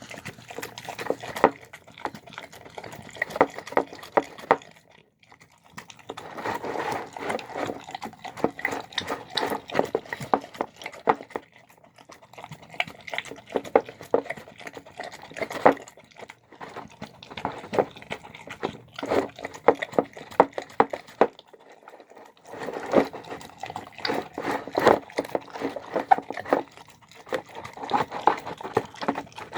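Dog eating a soft meal of pulled chicken, pork and rice: wet smacking and chewing in bouts of quick clicks, with a few short pauses.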